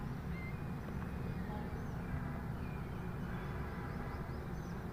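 A steady low rumble of outdoor background noise, with a few faint, short bird chirps scattered through it.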